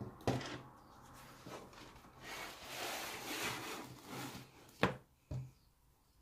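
A spiral-bound sketchbook handled on a tabletop: a knock, then paper rubbing and rustling as the book is slid and turned, then two short clicks near the end.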